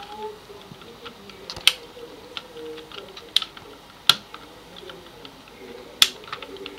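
Hard plastic clicks and knocks as a telephone plug adapter is pushed and fitted onto a square wall telephone socket: four sharper clicks among lighter ticks.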